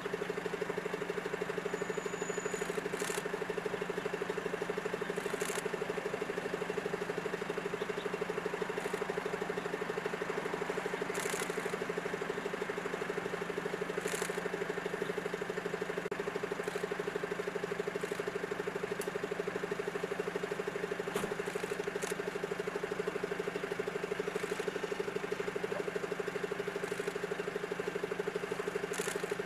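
Steady low hum of a running machine, unchanging throughout, with a few brief faint high clicks scattered through it.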